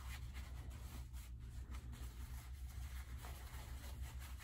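Faint rustling of a necktie's fabric as it is handled and drawn down through the knot, over a low steady hum.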